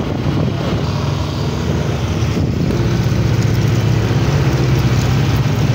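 Motorcycle engine running steadily while riding, over a steady rush of road and wind noise; the engine hum grows a little louder about halfway through.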